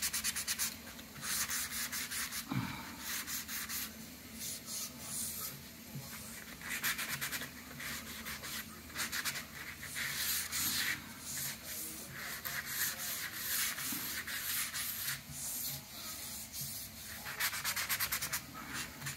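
A foam-backed 320-grit sanding sheet rubbed by hand over the painted MDF cabinet door's edge and curved profile. Light, scratchy back-and-forth strokes come in bursts with short pauses between them.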